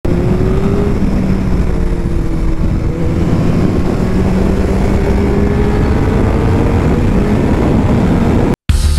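Kawasaki ZZR 1400 inline-four engine running at a steady cruise, its note dipping slightly and then climbing slowly, over a dense low rumble. Near the end it cuts off abruptly and music begins.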